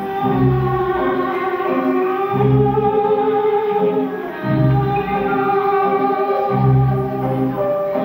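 Slow waltz music in three-time: a deep bass note on the first beat of each bar, about every two seconds, followed by two lighter chords, with a long held melody above.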